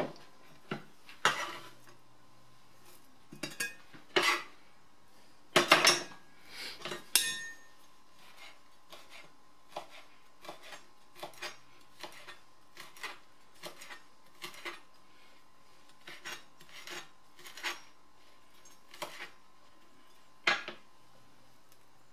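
Chef's knife chopping fresh rosemary on a plastic cutting board: a long run of light taps, about two a second. A few louder knocks and clatters in the first seven seconds, and one more about twenty seconds in.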